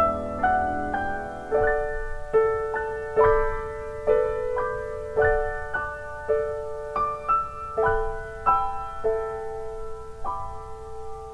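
Solo piano playing a slow, gentle instrumental, single notes struck about every half second to a second over a repeated middle note.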